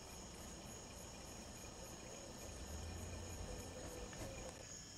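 Night-time insect chorus: a steady, faint high-pitched trilling with soft pulses repeating about four times a second.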